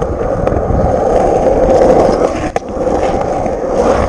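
Skateboard wheels rolling over the concrete of a skate bowl: a steady rolling noise with a brief break about two and a half seconds in.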